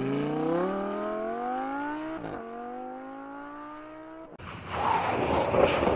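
Car engine accelerating, its pitch climbing steadily, dropping with a gear change about two seconds in, then climbing again. Near the end comes a loud burst of harsh noise lasting about two seconds.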